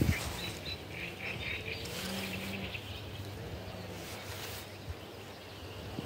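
Wind noise on the microphone, a steady low rumble, with small birds chirping repeatedly over the first couple of seconds and a single thump at the very start.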